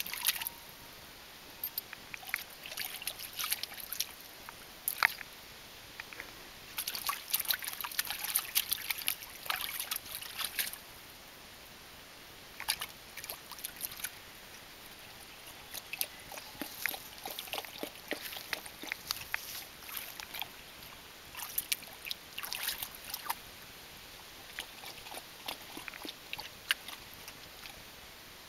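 Shallow water splashing and sloshing in a plastic paddling pool as a puppy moves about in it, in bursts of quick little splashes separated by short pauses.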